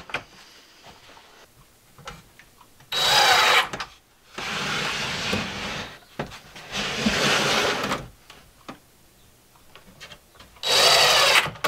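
DeWalt cordless impact driver driving screws into a metal drawer slide in two short, loud bursts, about three seconds in and again near the end. In between comes quieter, longer rattling as the wooden pull-out shelf is slid along its ball-bearing slides.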